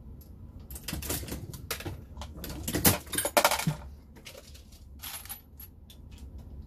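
Brass cartridge cases clinking together: a flurry of metallic clinks over about three seconds, loudest near the middle, then a few scattered clinks near the end.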